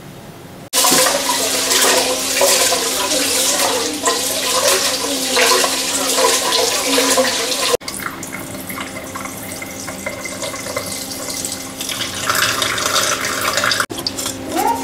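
Water running and splashing into a kitchen sink as cloudy rice-rinse water is poured out of a rice cooker's inner pot. The splashing starts abruptly under a second in and breaks off sharply about eight seconds in, then carries on a little quieter.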